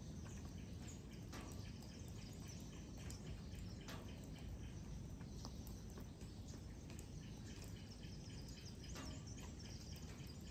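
Faint outdoor dawn ambience: scattered short bird chirps over a low, steady rumble.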